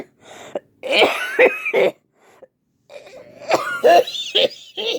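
A person coughing and clearing their throat in two harsh fits, the first about a second in and the second from about three seconds in, play-acting being sick.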